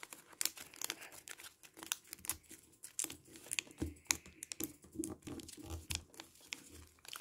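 Origami paper being folded and creased by hand: irregular soft crinkling and short, sharp paper clicks as the folds are pressed and tucked.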